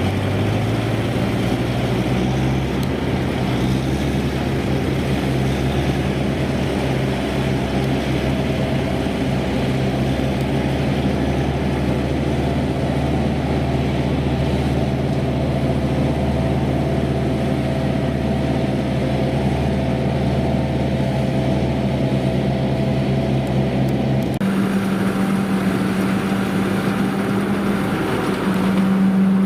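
Yanmar 4T100 engine of a farmer-built rice harvester running steadily, with an abrupt change in its note about 24 seconds in.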